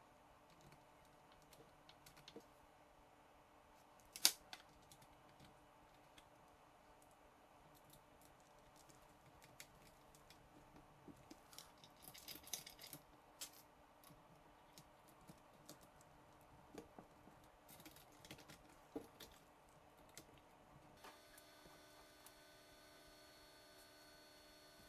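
Small, faint clicks and taps of 3D-printed PETG sway bar links being snapped and pressed onto an RC car chassis, with one sharper click about four seconds in and a busy run of clicks around the middle. A faint steady hum comes in near the end.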